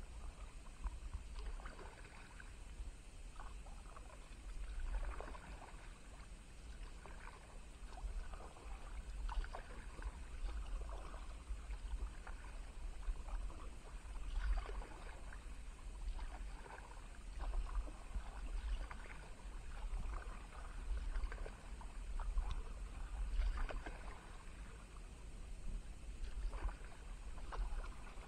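Kayak paddle strokes: the blades dipping and splashing into calm river water in a steady rhythm, about one stroke every second and a half, with water dripping off the paddle.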